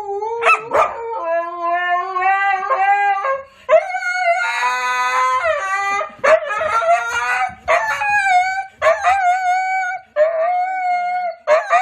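A dog howling in a series of long, drawn-out calls at a fairly steady pitch, separated by short breaks, with two howling voices overlapping for a moment about halfway through.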